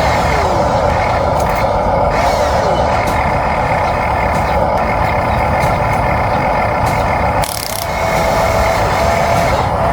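Remote-controlled toy excavator and dump truck running: a steady whine of small electric motors and gears, with short pitch slides as the machines change speed. It dips briefly about seven and a half seconds in.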